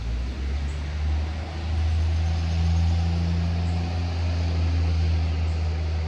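Low, steady engine drone of a motor vehicle, swelling over the first couple of seconds and easing off near the end.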